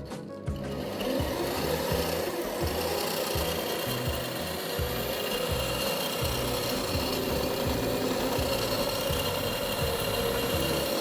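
Homemade belt sander, converted from an angle grinder, starting up about half a second in and running steadily: a motor whine with a continuous abrasive rasp of the sanding belt.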